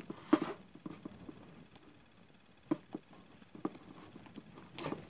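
Scattered soft clicks and rustles of a computer mouse's coiled USB cable being unbundled by hand.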